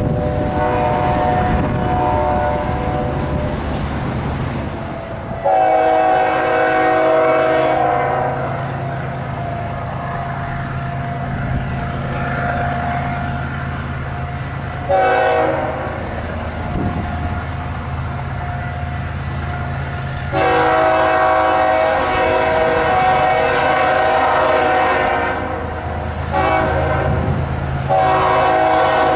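Metra diesel locomotive horn blowing the grade-crossing signal: long blasts, a short blast, then a long blast held about five seconds, with another starting near the end. The locomotive and train rumble steadily underneath.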